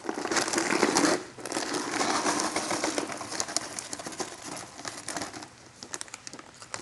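Plastic snack bag crinkling as it is handled. The rustle is loudest in the first second, pauses briefly, comes back for a couple of seconds, then thins to scattered light crackles.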